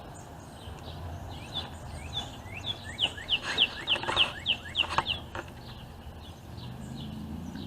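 Songbird singing: a quick run of short, falling chirps, about three a second, loudest in the middle, over a steady low background rumble.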